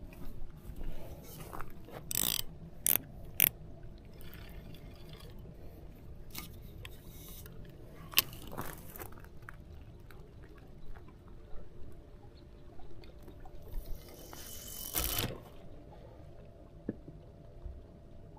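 Fishing rod and reel being handled: scattered sharp mechanical clicks, a few loud ones in the first few seconds, and a longer scraping rustle near the end.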